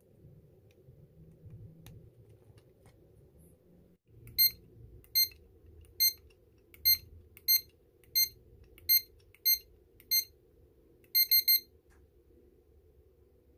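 Evernet digital door lock keypad beeping as its keys are pressed one by one: nine short beeps spaced under a second apart, then three quick beeps near the end. The beeps show the keys, which had stopped responding, now register after the repair.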